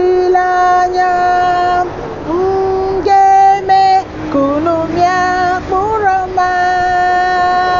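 A woman singing solo and unaccompanied, a slow song in Igbo made of long held notes with a few slides between pitches.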